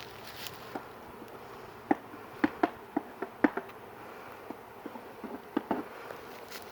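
Swarm of honeybees buzzing, with single bees flying close past in several brief, louder buzzes.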